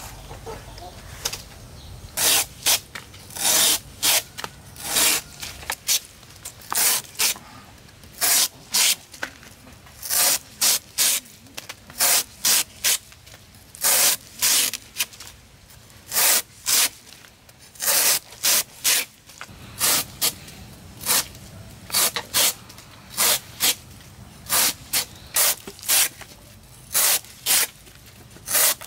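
Repeated short scraping strokes of a hand tool, coming irregularly about once or twice a second with brief pauses.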